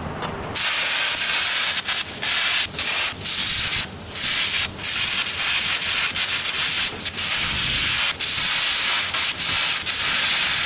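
Plasma cutter cutting through a welded steel bracket on a truck frame: a loud, steady hiss, broken by several short gaps.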